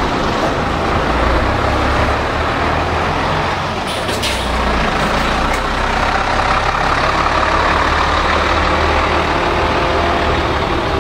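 Tokai Bus route bus pulling away from the stop and driving off, its diesel engine running steadily, with a short hiss about four seconds in.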